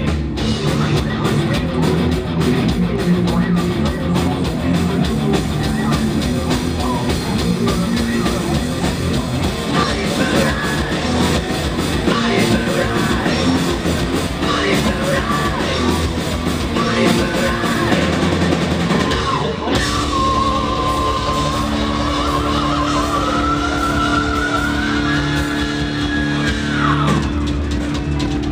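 Live punk rock band playing loud through a concert PA: pounding drums, distorted guitars and shouted vocals. About twenty seconds in, the full playing gives way to a held, ringing chord with a high note that slides slowly upward and then falls away.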